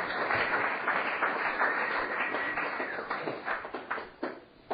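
Audience applause, dense at first, thinning to a few scattered claps and dying away about four seconds in.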